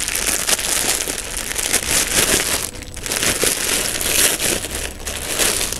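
Clear plastic packaging bag crinkling as it is handled and opened, with a short lull near the middle.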